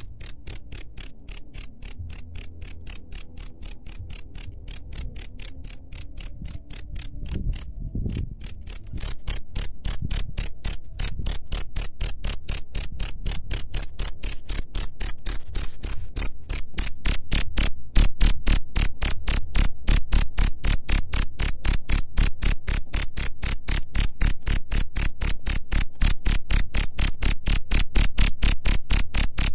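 Cricket chirping in a steady, even rhythm of about three to four short, high-pitched chirps a second. The chirping breaks off briefly about eight seconds in and comes back louder.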